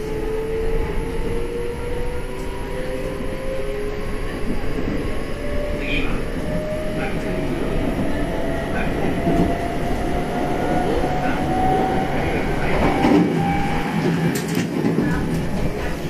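Kintetsu 6400 series train's SiC VVVF inverter and traction motors whining as the train accelerates, the tone rising steadily in pitch, over the rumble of the wheels on the rails. A few sharp clicks near the end.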